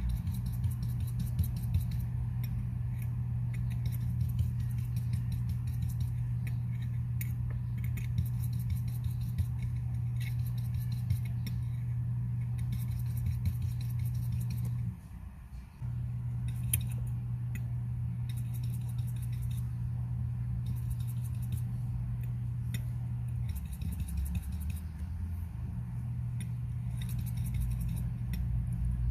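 Small metal watchmaker's tools and parts clicking, clinking and scraping lightly on a watch movement, in scattered bursts over a steady low hum.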